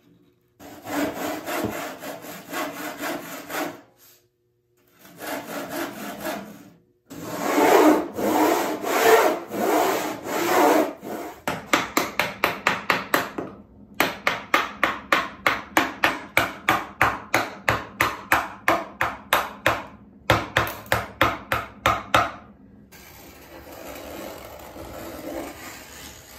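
Pine board being worked by hand. First comes a small wooden-bodied saw cutting the dado kerfs across the grain in quick short strokes, in three stretches. About halfway through, a wooden mallet starts striking a bevel-down chisel, two or three sharp taps a second, chopping out the waste. Near the end a knife scrapes more quietly along the kerf to deepen it.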